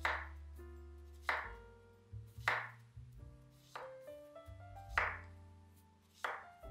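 Chef's knife slicing a zucchini into rounds on a wooden cutting board: six crisp cuts, about one every second and a quarter, each ending in a knock on the board. Soft background music plays underneath.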